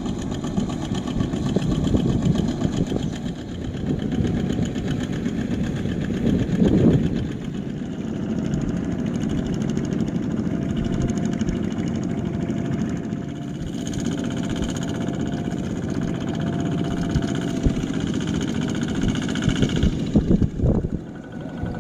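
Diesel engine of a two-wheel walk-behind tractor (power tiller) pulling a loaded trailer, running steadily while driving, with the sound swelling louder a few times.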